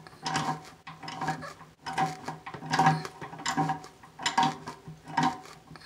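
A ratchet wrench tightening a toilet closet-bolt nut: short repeated strokes, about one every three-quarters of a second, each a click with a scraping, ringing rub.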